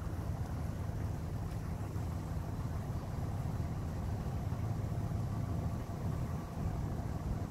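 Low, steady rumble of road vehicle engines idling.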